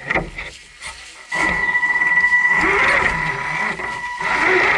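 Electric whine from a scale RC crawler's motor and speed controller as it drives over dirt and leaves. The whine cuts out shortly after the start, then comes back about a second later with busier, wavering motor noise as the crawler works under load.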